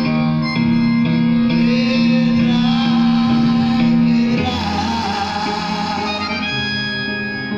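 A man singing a long, wavering held note over sustained instrumental chords in a live acoustic performance, with a chord change a little past halfway.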